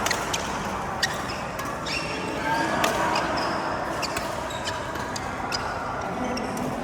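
Badminton play: sharp racket hits on the shuttlecock at irregular intervals, with a few short high squeaks and faint voices in the background.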